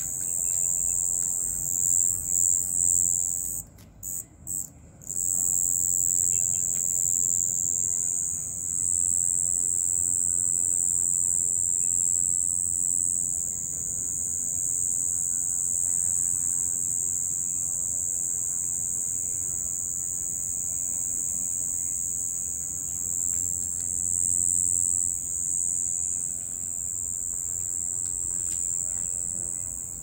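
Crickets singing, a continuous high-pitched trill that breaks off for about a second roughly four seconds in, with two short returns, then carries on steadily.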